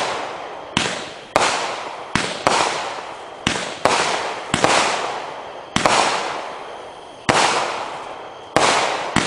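Hardcore Pyro Assassin-series firework cake firing a run of aerial shots, about one sharp report a second, each bang trailing off before the next.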